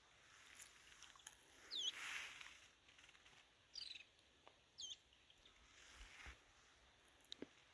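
Faint bird calls: three short, high whistles that slide downward in pitch, a second or two apart, over soft outdoor background noise.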